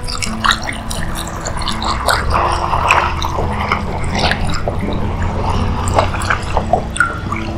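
Chicken broth poured from a carton in a steady stream into a large steel disc pan of rice and sofrito, splashing and dripping into the liquid already in the pan.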